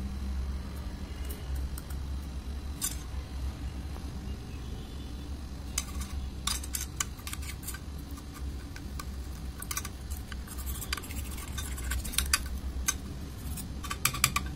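A metal butter knife and a plastic spoon clicking and scraping against a plastic bowl while stirring colour into white glue. The clicks start about halfway in and come thickest near the end, over a steady low hum.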